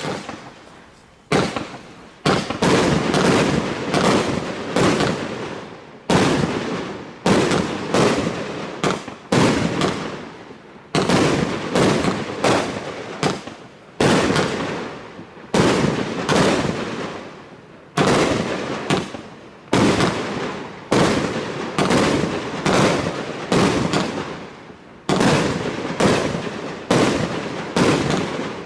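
A 49-shot, 30 mm fireworks cake firing its shells one after another, a sharp bang every half second to a second, each fading away before the next.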